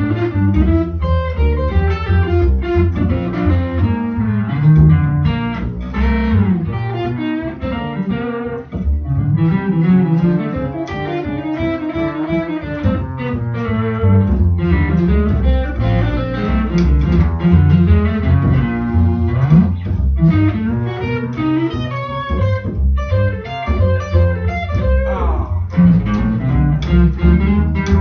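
Solid-body electric guitar and pizzicato upright double bass playing together as a duo. The guitar plays a busy single-note line over a plucked bass line.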